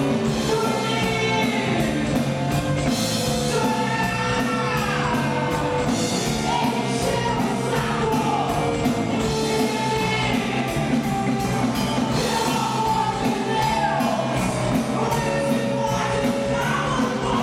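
Live rock band playing: a woman singing over drums, electric bass and electric guitar.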